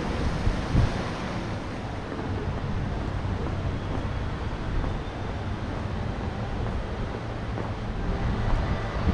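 Wind on a handheld action camera's microphone, a steady low rush.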